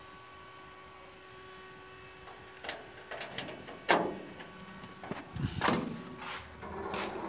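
Faint steady hum, then from about two and a half seconds in a string of sharp knocks and bangs, the loudest about four seconds in, with duller thumps after it.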